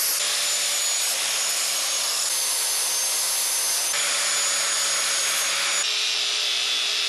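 Angle grinder running and grinding down a cast aluminum part, a steady high whine over a harsh grinding noise. The whine jumps abruptly in pitch a few times.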